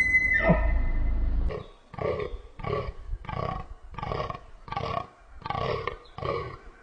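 An animal calling: a loud held, rumbling call, then a steady run of short, rough grunting calls at about two a second.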